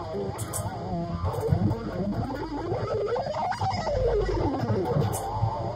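Electric guitar shred lead: held notes with wide vibrato, then a fast run that climbs in pitch and comes back down.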